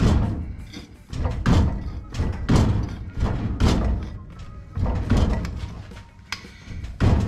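Sheet metal being shrunk with a hand-operated shrinker: a heavy thunk about once a second as each stroke gathers the flange, with a short ringing tail after each.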